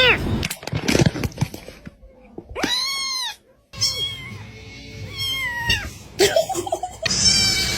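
Cats meowing: several drawn-out meows that rise and then fall in pitch, the longest about half a second long a little before the middle, with more near the end.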